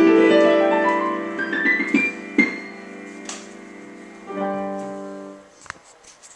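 Solo piano: a held chord, then a quick rising run of notes up the keyboard and a few single notes, ending on a final chord that dies away. A few faint clicks follow near the end.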